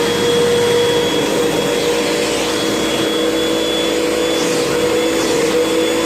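Hoover vacuum cleaner running steadily at full speed: a constant motor whine over a loud rush of air.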